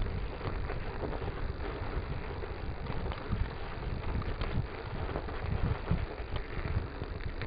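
Mountain bike riding over a snow-covered track: uneven rumbling wind buffeting the microphone, with tyre noise and scattered small clicks and rattles from the bike.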